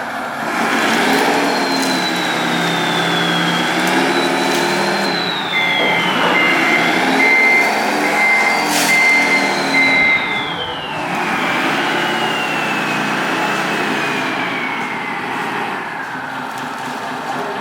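Sound module of an RC Komatsu wheel loader playing a running diesel engine. Over it, the models' electric motors whine, rising and falling in pitch as they are driven. In the middle a beeper pulses for about five seconds.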